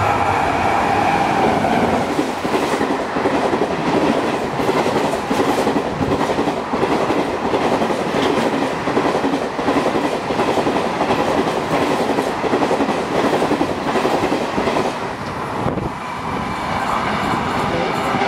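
An express passenger train runs through the station at speed, its coaches clattering rhythmically over the rail joints in a dense, steady rush of wheel and track noise. A horn note, carried over from the approach, fades out in the first second or two.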